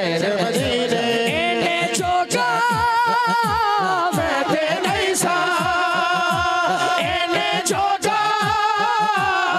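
A man singing a Punjabi naat solo into a microphone with strong vibrato, over a steady low beat of about two pulses a second.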